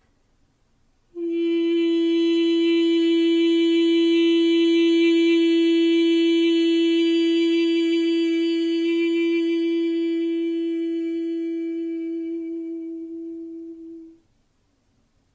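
A woman's voice toning a single long held note for sound healing, steady in pitch throughout. It starts suddenly about a second in and fades out gently near the end.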